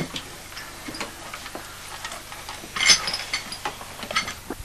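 Irregular clicks, knocks and clinks of objects being handled in a wooden box in a wall cupboard, with a short, louder clatter about three seconds in.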